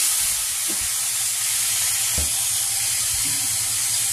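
Kangkong (water spinach) freshly dropped into hot garlic oil in a frying pan, sizzling with a loud, steady hiss as the wet greens hit the oil. A couple of soft knocks of handling in the pan.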